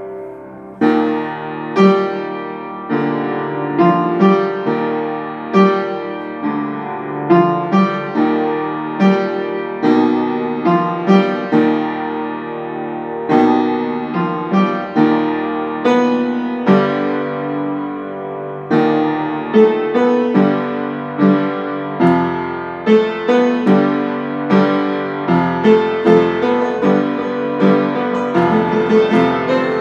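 Upright piano played solo in an improvised piece: chords and notes struck about once a second, each ringing and fading, the notes coming faster near the end.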